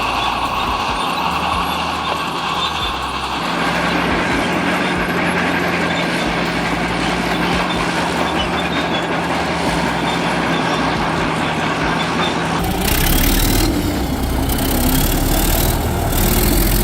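Heavy diesel engine of a vintage Caterpillar crawler tractor running steadily. About 13 seconds in, the sound switches abruptly to a slightly louder, rougher engine noise with more hiss, from a second old Caterpillar bulldozer's diesel.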